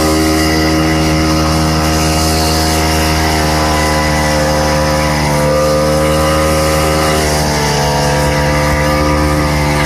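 Vintage Ski-Doo snowmobile's two-stroke engine running loud and steady under way, its pitch sagging slightly about three-quarters of the way through.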